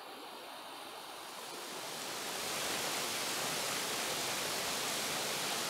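Pressurized spray rack's many water nozzles spraying onto a plastic sheet, a steady rushing hiss that grows louder over the first two seconds, then holds.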